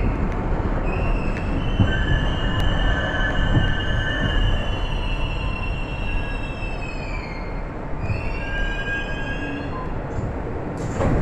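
R62A New York subway car on the 1 train running on the rails, with a steady rumble from underneath. The wheels squeal in long, high, wavering tones: one lasting most of the first seven seconds and a second one shortly after.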